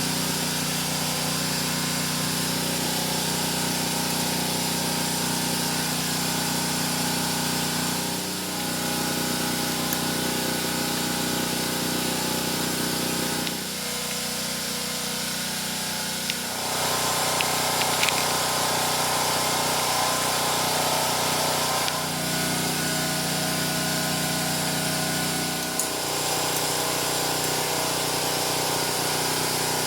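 A motor running steadily with a droning hum, its pitch stepping up or down every few seconds.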